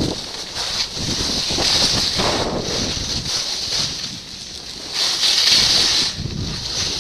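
Wind rushing over a skier's goggle-mounted camera microphone, mixed with skis scraping the snow through the turns. The hiss surges and fades every second or so.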